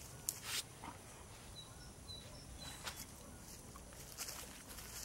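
Faint rustling steps through dry grass and twigs, with a short crunch about half a second in and a few quieter ones later. A few short, faint high bird chirps.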